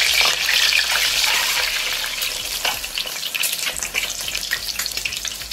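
Boiled eggs sizzling as they fry in hot mustard oil in a metal pot, with a metal spoon clicking and scraping against the pot as they are turned. The sizzle grows quieter toward the end.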